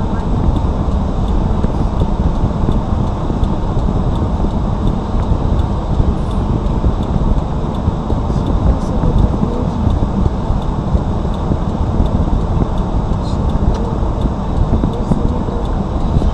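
Steady low rumble of a car's cabin picked up by a dashcam microphone, with no distinct events.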